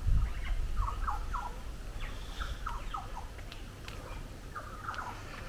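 Birds calling in tropical garden vegetation: a run of short, quick downward chirps, several to a second, with a low rumble on the microphone near the start.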